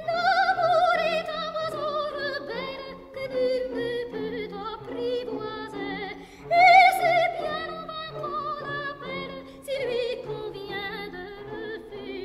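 Operatic soprano singing with a wide vibrato over orchestral accompaniment. The long phrases start on a high note and slide slowly downward, with a new high entry about seven seconds in and another near ten seconds.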